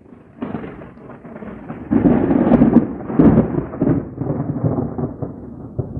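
Thunder rolling in a long rumble. It swells about half a second in, peaks in several loud rolling surges between about two and three and a half seconds in, then carries on as a lower, steady grumble.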